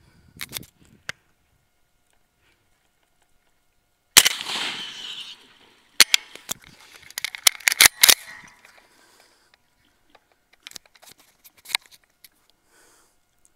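A single rifle shot about four seconds in, its report dying away over about a second. A quick run of sharp clicks and knocks follows over the next two seconds, with a few fainter clicks later.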